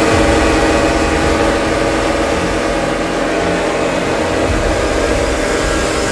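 A pack of pocketbikes' small two-stroke engines buzzing together in a steady, high-pitched drone, held on the throttle on the starting grid at the start of a race.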